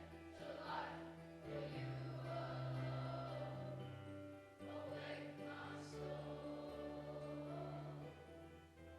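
A congregation singing a hymn together, with instrumental accompaniment playing held chords and a sustained bass line.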